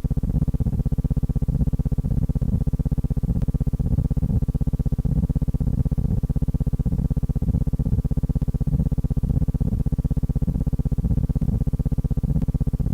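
Steady low buzzing hum that pulses rapidly and evenly without change.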